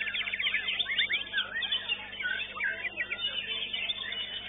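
White-rumped shama (murai batu) singing in a contest cage: a continuous stream of varied whistles, up-and-down sweeps and fast trills.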